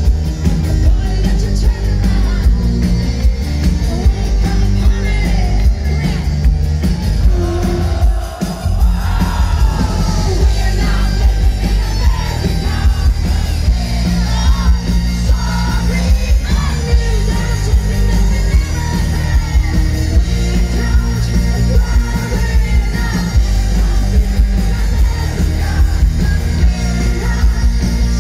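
Live rock band playing loud: a woman singing and shouting into a microphone over electric bass, guitar and drums, with a heavy low end.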